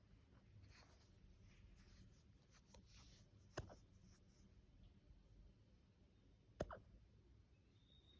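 A puppy hiccuping twice, about three seconds apart, each hiccup a single short, sharp hic.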